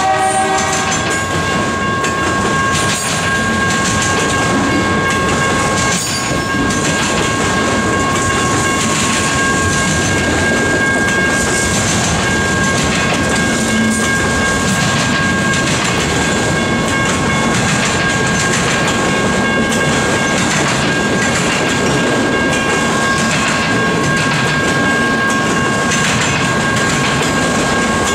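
Freight train of autorack cars rolling past close by: a steady rumble and clatter of steel wheels on the rails, with rhythmic clicks over the rail joints and a steady high-pitched ringing running through it. The locomotive's horn chord cuts off in the first half second.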